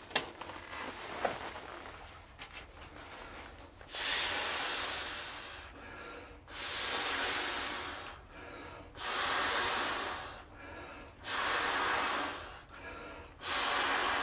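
A person blowing up an inflatable Trekology sleeping pad by mouth: five long, forceful exhaled breaths, each about a second and a half, with short pauses for breath between. A few light clicks come near the start.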